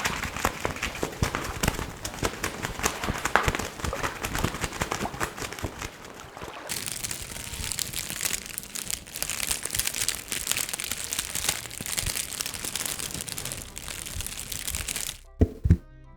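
Dense crinkling and crumpling, a continuous run of small crackles like material being crushed and rustled. The texture turns brighter and hissier about two-thirds of the way through. It stops near the end, where a couple of low thunks come in.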